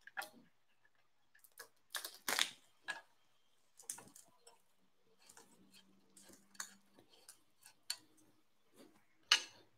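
Sparse light clicks and small knocks of metal as a bolt is screwed slowly into the frame of a Creality Ender 6 3D printer during assembly, taken carefully so it doesn't cross-thread.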